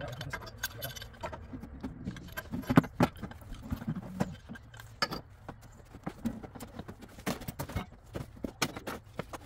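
Irregular metallic clinks and knocks of pipe wrenches working the fittings on a black iron gas pipe, with the loudest knock about three seconds in.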